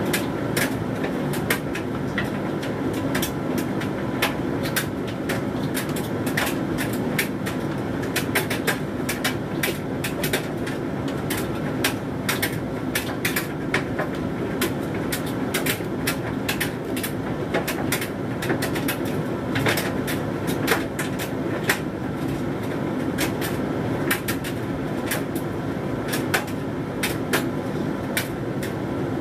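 Hoover Dynamic Mega 10kg condenser tumble dryer running, with a steady hum from its drum and fan. A load of synthetics tumbles inside the drum, making many irregular clicks and knocks.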